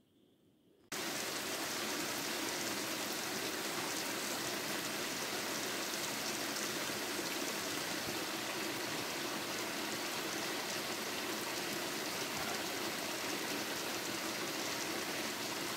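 Heavy rain pouring down, a steady even hiss, cutting in abruptly after about a second of near silence.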